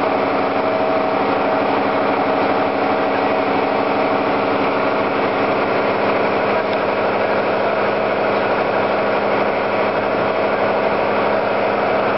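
A fire engine's motor running steadily at one constant pitch, with an even hum and no change in speed.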